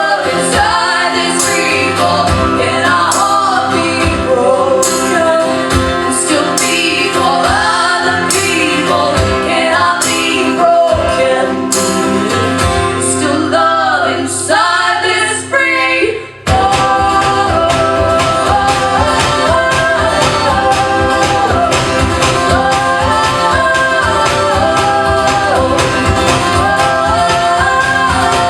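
Live folk song: singing with instrumental accompaniment. About halfway through the music drops back for a moment, then comes in fuller with a busier, rhythmic accompaniment under the singing.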